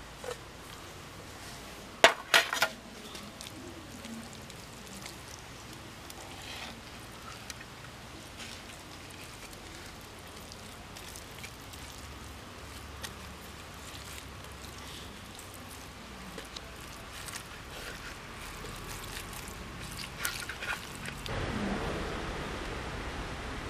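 Hands rubbing a wet masala paste into a raw mutton leg in a clay pot, with soft wet squelching and small clicks. About two seconds in there are three sharp metallic clinks, as of a steel plate knocking against the pot, and a low rumble builds near the end.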